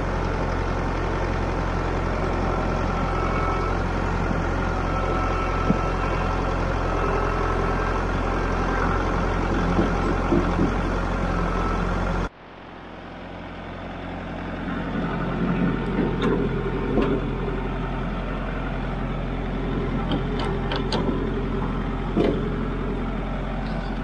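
Kubota MX5400 tractor's four-cylinder diesel engine running steadily at low speed, its sound dropping suddenly about halfway and then carrying on. A few light clicks come in the second half as the front loader lines up with its bucket.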